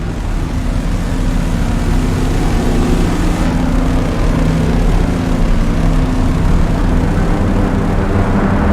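Dark synthesizer drone: a steady rumbling texture with several held low tones and a hiss layered over them, like a distant engine or aircraft.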